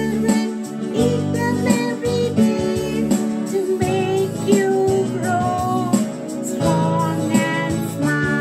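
A woman singing a children's song over an instrumental accompaniment of plucked strings, with a steady light beat.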